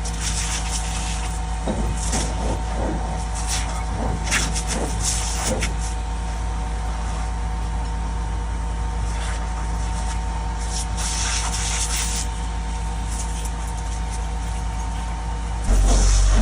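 Fire engine's motor and pump running steadily, with several short bursts of hissing water spray from a hose as the nozzle is opened up. The low rumble grows louder near the end.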